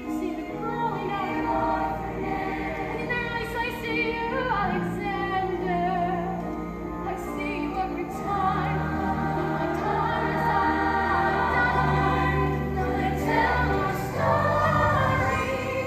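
A stage cast singing in chorus over musical accompaniment, with long held low notes underneath and the voices moving in pitch above.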